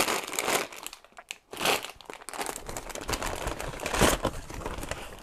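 Plastic food packaging and a brown paper bag crinkling as they are handled, with louder crackles about one and a half seconds in and again near the end.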